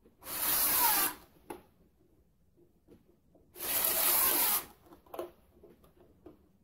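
A screwdriver driving 3/16-inch nuts and bolts through the hull flanges, in two bursts of about a second each: one just after the start and one about three and a half seconds in.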